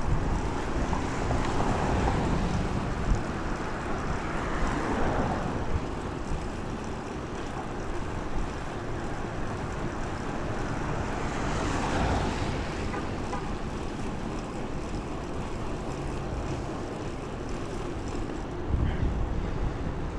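Wind buffeting a clip-on lavalier microphone on a moving bicycle, a steady low rumble with rushing hiss that swells twice, once in the first few seconds and again around the middle.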